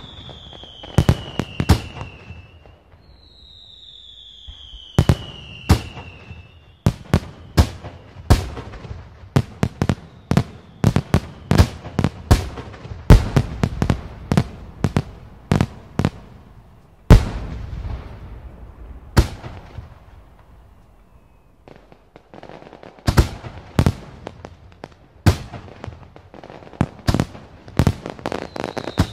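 Fireworks display: a long, irregular series of sharp bangs from bursting aerial shells, densest through the middle, with a short lull about two-thirds of the way through. A whistle slides down in pitch twice in the first few seconds and again at the end.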